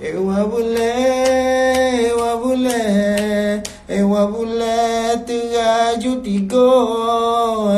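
A man singing unaccompanied in a chant-like melody, holding long notes that waver and slide between pitches, with two short breaks for breath.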